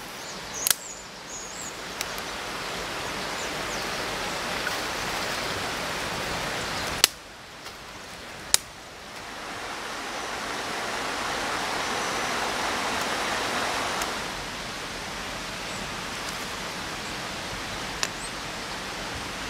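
Small woodland stream running over rocks, a steady rush of water that swells for a few seconds in the middle, with several sharp snaps of dry twigs and sticks being broken.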